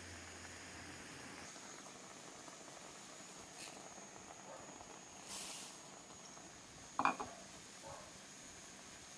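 Chicken stew simmering faintly in a pot on a gas stove. About five seconds in comes a brief hiss, and about seven seconds in a short, sharp clatter, as raw rice is tipped from a bowl into the stew.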